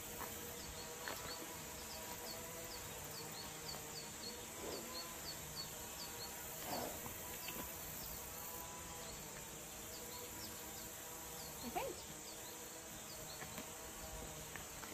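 Outdoor ambience of insects: a steady high drone, with a short chirp repeating about two to three times a second that fades out about halfway. A few faint clicks sound now and then.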